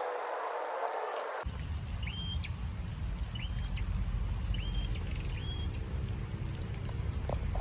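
A bird calling repeatedly in short, high whistled notes, each a brief level tone ending in a quick downward hook, about one a second, over a steady low rumble. Just over a second in, a busier tangle of many overlapping gliding tones cuts off suddenly.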